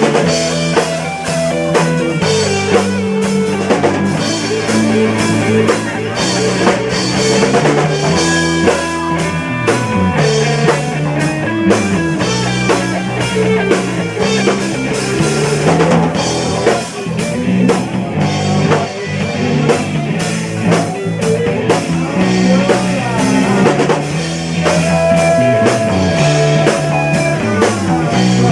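Rock band playing live: drum kit keeping a steady beat under electric guitar and bass, with a few long held guitar notes.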